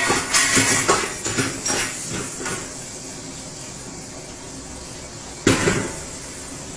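A metal ladle clanking against large woks, several sharp knocks in the first two seconds or so, then a steady hiss, broken by a sudden loud clash about five and a half seconds in.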